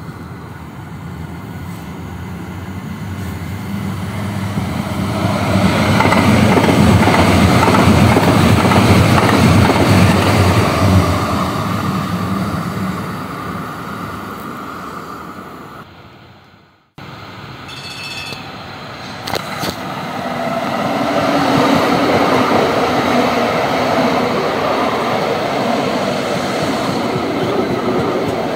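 Light rail train running past: the rumble of wheels on rail and traction motors builds to a peak, then fades away. After a sudden break about halfway through, another light rail train is heard approaching and running close past, with a brief high-pitched tone shortly after the break.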